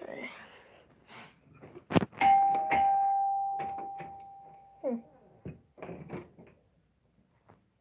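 A sharp click, then a bell-like chime that rings clearly and fades away over about two and a half seconds.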